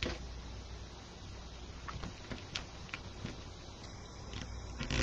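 Faint handling noise of hands working black mesh into the zip ties of a wreath board: soft rustling with a few light clicks in the middle and a louder rustle near the end, over a low steady hum.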